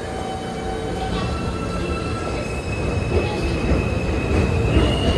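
New York City Subway train pulling out of the station and accelerating. Its electric traction motors whine in a few steady tones that step up in pitch near the end, over a rumble of wheels on rail that grows steadily louder.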